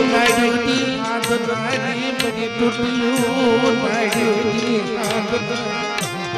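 Gujarati dakla devotional folk music: sustained melodic instrument tones over drum strokes that fall about once a second.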